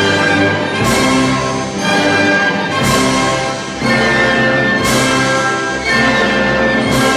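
Orchestral background music with brass, full chords struck anew about once a second.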